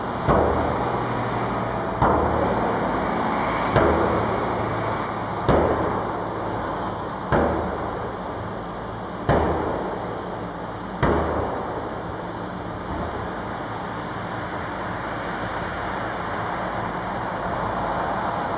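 Heavy pounding strikes, seven in a row just under two seconds apart, each followed by a short ringing decay, stopping about eleven seconds in. Underneath is the steady noise of road-construction machinery.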